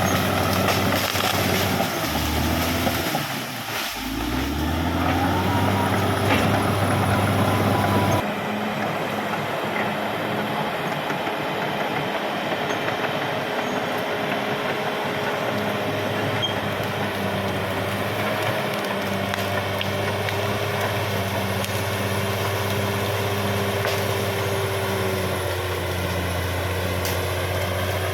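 Caterpillar D6R XL bulldozer's diesel engine running steadily as the dozer works. The engine note drops and picks up again about three to four seconds in. The sound changes abruptly about a third of the way through, and a steady high whine runs over the engine after that.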